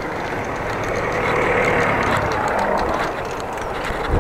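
Riding noise from a bicycle on the road: tyres and wind rushing on the microphone, swelling into a louder, brighter rush about a second in and easing back after about three seconds.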